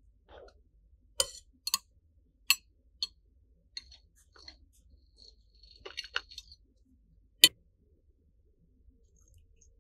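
Sharp, irregular clicks and taps of a metal offset spatula and metal tweezers against a cake plate. There is a short run of small scraping ticks about six seconds in, and the loudest single click comes about seven and a half seconds in.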